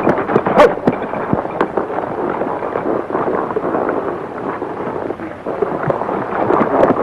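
Horses galloping: a dense, irregular drumming of hoofbeats, with a few sharper knocks in the first second.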